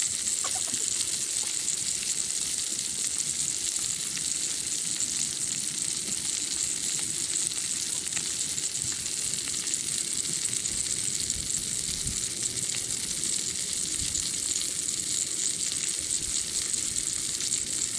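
Steak sizzling steadily as it sears.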